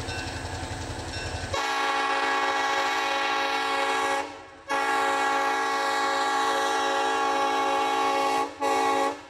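Diesel locomotive's air horn sounding two long blasts and then a short one, the opening of the long-long-short-long grade-crossing signal. For about the first second and a half, before the horn, there is a low rhythmic rumble.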